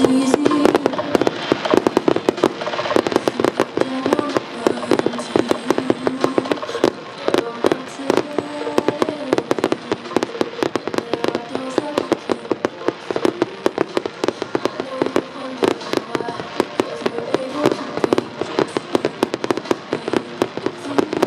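Fireworks going off in a rapid, unbroken string of sharp pops and bangs, several a second, with a steady music soundtrack underneath.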